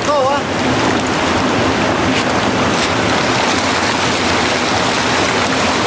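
Steady rushing and splashing of water in a concrete trout-farm rearing tank, with a crowd of trout thrashing at the surface in a patter like rain.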